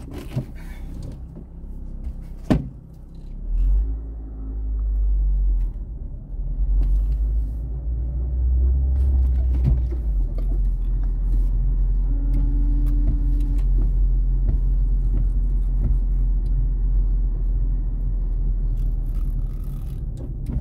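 Manual-shift car's engine heard from inside the cabin: a sharp click about two and a half seconds in, then a deep rumble that builds from about three and a half seconds and runs on steadily.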